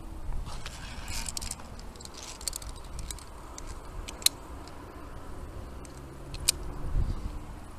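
Metal clinking and jangling of via ferrata lanyard carabiners on the steel safety cable, in scattered sharp clicks, over low wind rumble on the microphone.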